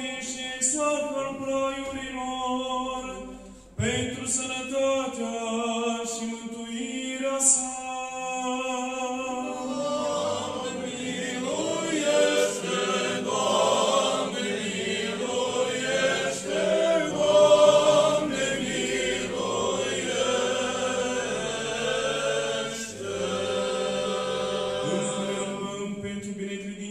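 Unaccompanied Romanian Orthodox liturgical chant: one sung line at first, with several voices singing together from about ten seconds in.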